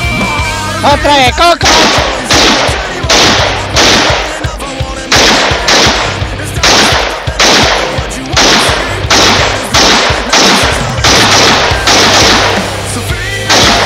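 Rifle shots fired in a steady string, about two a second, with a few short pauses between groups. Background music runs underneath.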